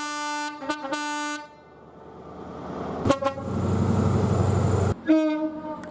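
Train horns on British trains in quick succession: a horn blast of about a second and a half with a brief break in it, a short toot about three seconds in followed by a low rumble, then another horn about five seconds in.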